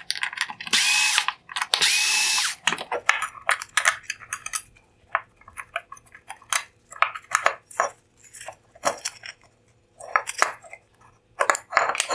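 Milwaukee cordless screwdriver running in two short runs of about a second each near the start, backing out the two small T10 Torx screws that hold the plastic lens over an LED, with a steady motor whine. After that, a string of light clicks and clinks as the small metal and plastic parts are handled on the bench.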